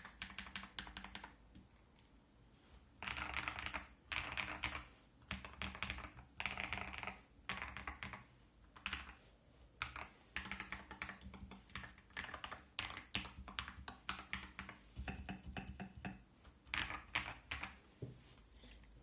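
Typing on a TM680 mechanical keyboard with Akko CS Lavender Purple tactile switches: quick runs of key clacks in bursts, with a pause of about a second and a half near the start.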